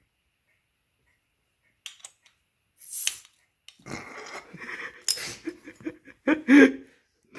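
A glass beer bottle's crown cap is pried off with a bottle opener: metal clicks, scraping and handling, and a sharp hiss-like pop. The cap comes off near the end, with a short burst of laughter.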